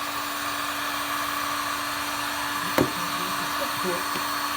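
Electric heat gun blowing steadily, heating a metal spinner blade so the powder coat will stick to it. A single sharp knock sounds partway through.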